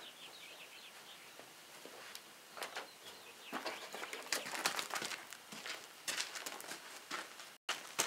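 Faint, irregular scrapes, knocks and crackles as a freshly sawn maple slab is lifted by hand off the log on a sawmill bed, its bark edge rubbing and crumbling against the log.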